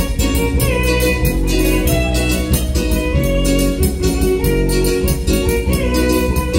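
Live band playing an instrumental passage of Latin dance music with a steady beat.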